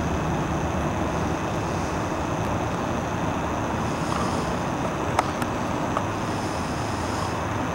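Steady outdoor background rumble, with a few faint clicks about five seconds in.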